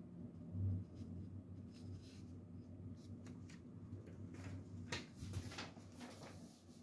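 Quiet office room tone with a steady low hum. A soft, dull thump comes about a second in, and faint rustling and light clicks follow in the last couple of seconds.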